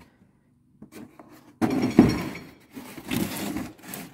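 Plastic tool cases being handled and shifted: a small click, then a sudden knock a little after one and a half seconds in, followed by rubbing and scraping and a lighter knock near the end.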